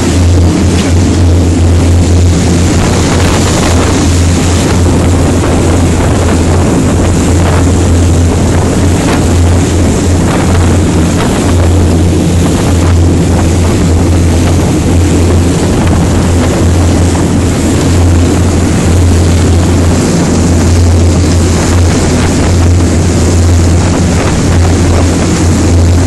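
Fishing boat's inboard engine running steadily at cruising speed with a deep, even drone, over the hiss and rush of the churning wake behind the stern.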